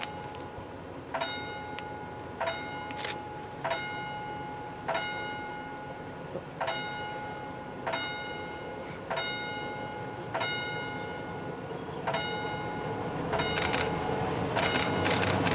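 Level-crossing warning bell striking single ringing dings about once every one and a quarter seconds. From about twelve seconds in, a red Uerdingen diesel railbus's engine and wheels grow steadily louder as it approaches the crossing.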